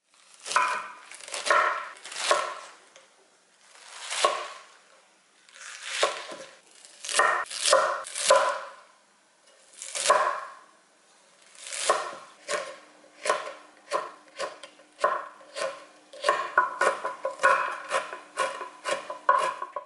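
Kitchen knife chopping vegetables on a wooden cutting board: slow single cuts through bundles of scallions and water dropwort, then from about halfway quick rapid strokes, several a second, as red chili peppers are minced.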